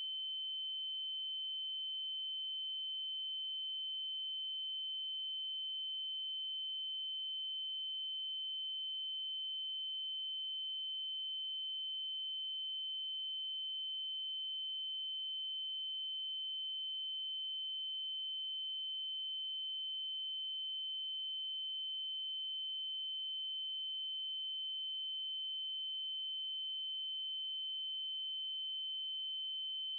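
Steady 3072 Hz triangle-wave tone, a pure high electronic pitch held without change.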